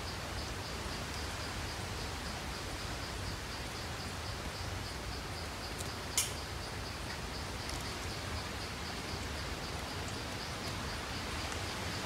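Steady woodland background hiss with an insect's high chirp pulsing evenly, about three pulses a second, and a single sharp click about six seconds in.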